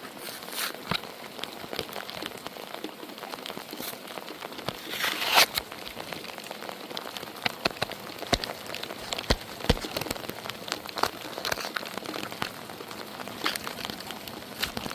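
Light rain falling, with individual drops ticking sharply and irregularly on nearby surfaces, and a louder splash or rustle about five seconds in.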